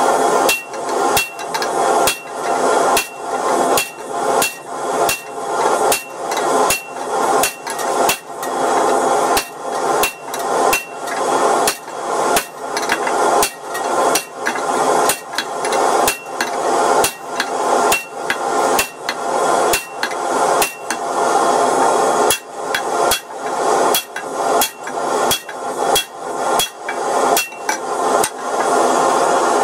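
Hand hammer blows on a red-hot steel bar on an anvil, about two strikes a second with short pauses, drawing out the taper of a hole punch. A steady rushing noise runs underneath the blows.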